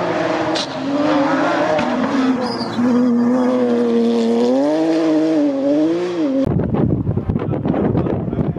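Porsche 911 rally car's flat-six engine revving up and down through a corner. About two-thirds of the way through, the engine sound cuts off abruptly and gusty wind noise on the microphone takes over.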